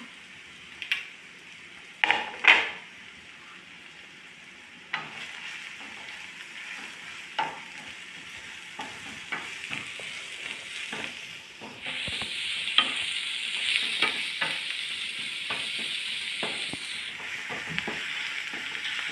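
Chopped onions, garlic, green chillies and curry leaves sizzling in hot oil in a nonstick kadai while being sautéed to brown them, with a spoon stirring and scraping against the pan in many short knocks. The sizzle grows louder about twelve seconds in and eases off again near the end.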